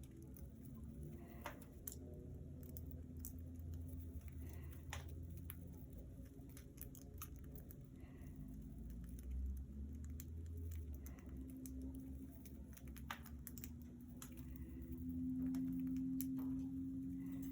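Light scattered clicks and tapping of budgies moving about their cage, over a steady low hum that grows louder near the end.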